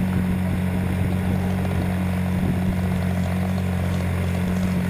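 RC airplane's engine and propeller running at a steady, constant pitch, heard up close from a camera mounted on the plane.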